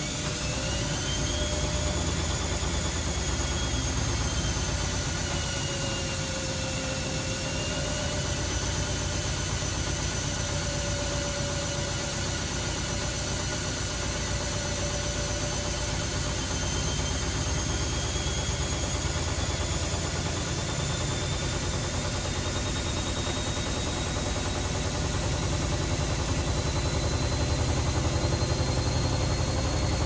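Zanussi ZWF16070W1 washing machine turning its drum: a steady motor whine that wavers in pitch, then climbs slowly through the second half, over a low hum and rumble.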